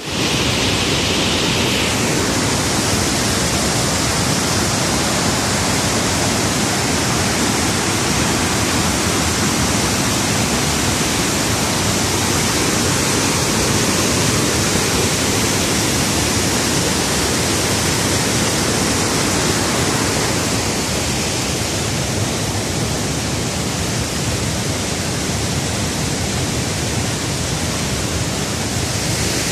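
Large waterfall in flood, white water pouring over and crashing against rocks: a steady rush with no let-up.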